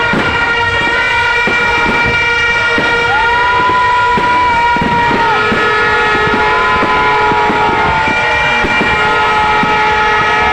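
New Year's fireworks banging and crackling continuously under several horns sounding at once in long steady tones. Now and then a whistle rises and falls above them.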